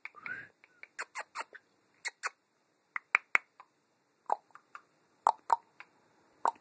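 A series of sharp, irregular clicks and taps, several coming in quick pairs, with a brief faint chirp near the start.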